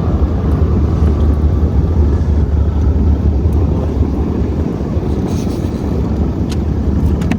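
A motorboat running under way: a steady low rumble that eases slightly late on, with a few faint ticks near the end.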